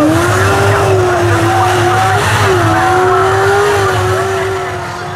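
A speedway race car's engine running hard, its pitch wavering up and down as the driver works the throttle, with tyre noise from the car sliding on the dirt; the sound fades near the end.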